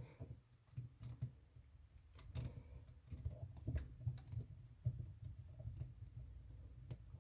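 Faint, scattered clicks and light knocks with a low rumble of handling, from an old wall outlet and its wires being worked out of the electrical box.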